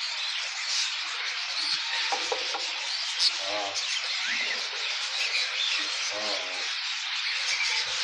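Many budgerigars chattering together, a continuous high twittering with a few short chirps standing out.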